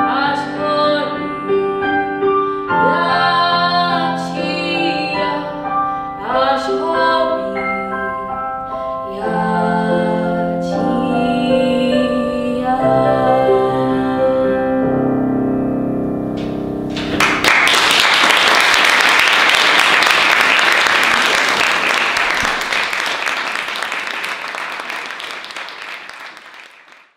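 A young woman singing solo with piano accompaniment; the song ends about seventeen seconds in. Audience applause follows and fades out near the end.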